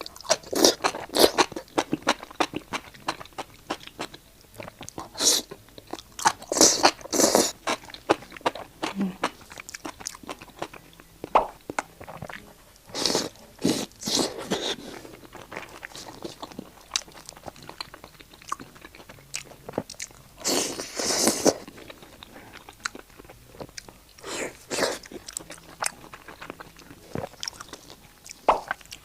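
Close-miked biting and chewing of crispy deep-fried skewers: loud crunches come in clusters every few seconds, with quieter chewing between them.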